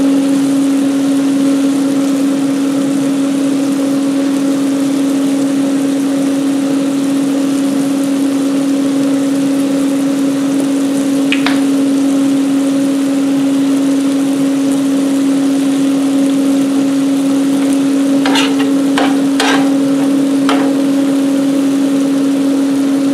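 Ground beef, peppers and onions sizzling steadily on a steel griddle flat top, over a constant hum. There is a sharp tap about halfway through and a few more near the end.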